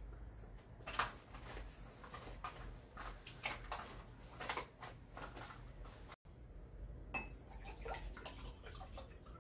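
Faint, scattered clicks and light knocks, like small objects being handled, over a steady low hum. The sound drops out for an instant about six seconds in.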